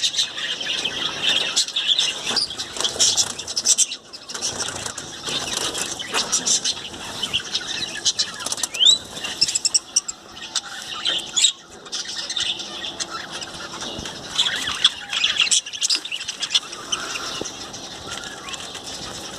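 A pair of Sindhi parrots (Alexandrine parakeets) fluttering and flapping their wings in irregular bursts, with short high chirps and squeals, one of them a brief rising call about nine seconds in.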